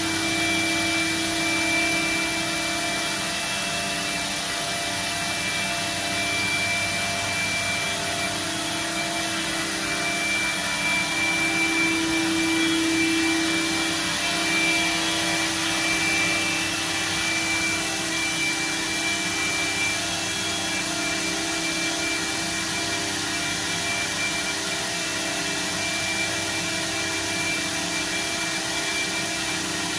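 Steady whir and hiss of a C.R. Onsrud CNC router's running machinery, its vacuum hold-down pumps and dust extraction, with a steady hum and a high whine. The hum swells for a couple of seconds about twelve seconds in.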